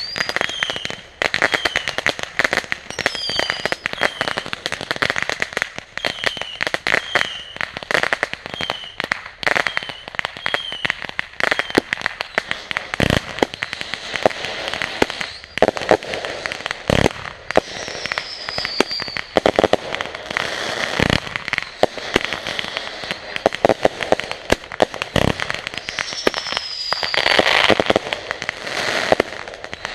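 Consumer fireworks going off: dense crackling throughout, with many short falling whistles in the first half, two longer falling whistles later, and four deep bangs spaced about four seconds apart in the second half.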